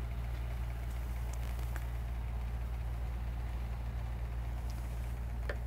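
A steady low hum that does not change, with a few faint clicks.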